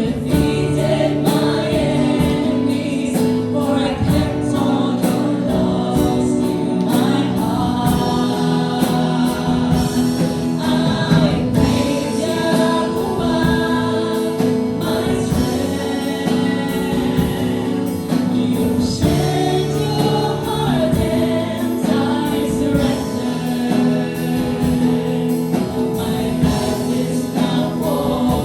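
Gospel worship song: a group of voices singing together over band accompaniment with a steady beat.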